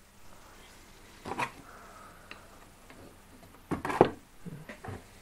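Handling noise: a few short knocks and clicks against quiet room tone, the loudest about four seconds in.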